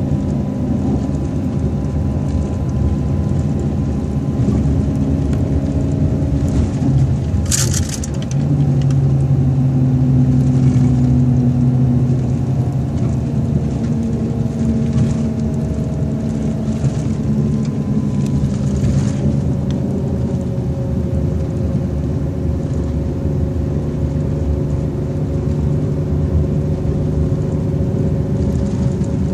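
Scania K420 coach engine running steadily at cruise, with tyre and road rumble, heard from inside the passenger cabin. A short hiss comes about seven seconds in, with a brief dip and change in the engine note just after it.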